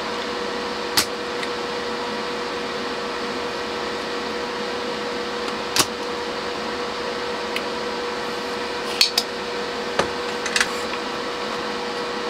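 Steady whir of a hot air rework gun's fan while a surface-mount choke is heated off a circuit board, with a handful of sharp light clicks from tools touching the board.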